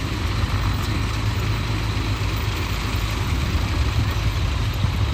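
Mahindra Arjun Novo 605 DI tractor's diesel engine running steadily, driving a Nippy45 mini combine harvester attachment, with a constant low rumble.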